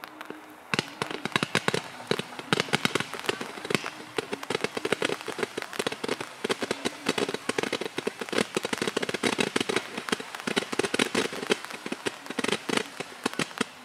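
A 432-shot consumer firework cake (Magnus Fireworks Sky Crisis) firing its rapid-fire stars. After a brief hiss, a dense, continuous stream of quick pops begins about a second in.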